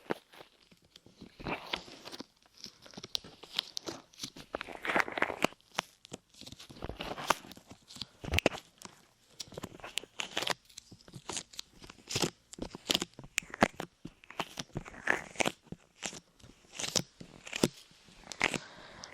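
Light clay being pressed onto and pulled off the ears of a microphone, making irregular sticky crackles and crunches with scattered sharp clicks.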